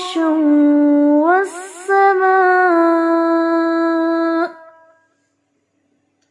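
A woman's voice reciting the Qur'an in slow, melodic tajweed chant, drawing out long held notes with gliding pitch on the word 'firāshā'. The recitation breaks off suddenly about four and a half seconds in.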